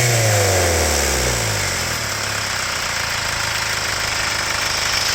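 Hyundai Grand Starex turbodiesel engine being revved: the engine speed peaks at the start and falls back to idle about a second and a half in, then it idles steadily. The engine is down on power and shows abnormal intake airflow readings.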